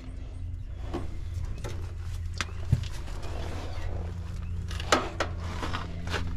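A steady low hum throughout, with a few short clicks and rustles as a meter's wire test leads are handled.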